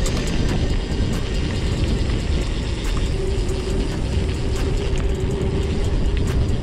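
Mountain bike on the move: its rear freehub ratchet clicks in a fast buzz while the rider coasts, over steady rattle and tyre noise. A steady tone joins about three seconds in.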